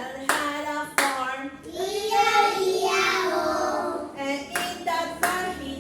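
Hand claps with voices singing or chanting. A couple of claps come near the start and again near the end, and a long drawn-out sung note fills the middle.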